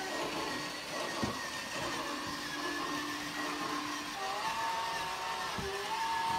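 Toy Christmas train set running on its plastic track: a steady small-motor whir, with a simple electronic melody from the train in slow held notes that grows louder about four seconds in as the train comes closer. A couple of light knocks.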